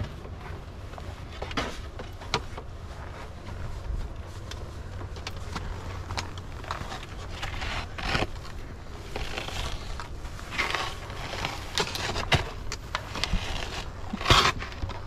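Snowboard and gear being handled, with footsteps crunching on packed snow: many short clicks and rustles over a steady low rumble, with a louder scrape or rustle near the end.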